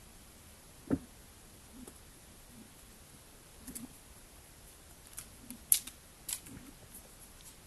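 New lake ice, a few centimetres thick, cracking as the sheet thickens and expands: a single low knock about a second in, then a scatter of sharp high-pitched snaps and ticks in the second half, the loudest near the three-quarter mark. The high snaps come from the ice working against branches and rocks on the shore, the deeper knock from ice sheets rubbing together out in the middle of the lake.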